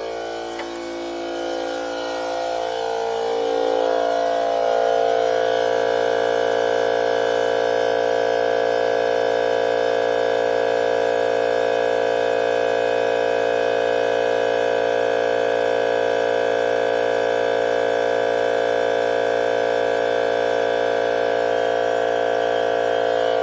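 DeWalt FLEXVOLT 60V cordless 2.5-gallon air compressor running to refill its tank after use, a steady motor hum that grows louder over the first few seconds. Near the end the pitch falls as the motor winds down, the tank having reached its cut-out pressure.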